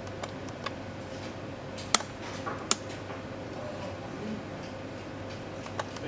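Five sharp mechanical clicks at uneven intervals, the loudest about two seconds and nearly three seconds in, as tactile push buttons on a breadboard test circuit are pressed. A steady low electrical hum runs underneath.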